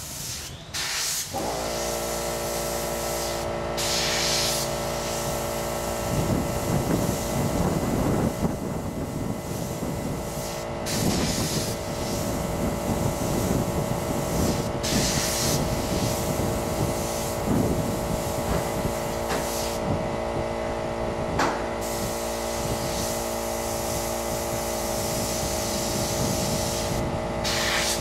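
Airbrush spraying paint onto a hoodie in short hissing bursts, over the steady hum of an air compressor that switches on about a second in.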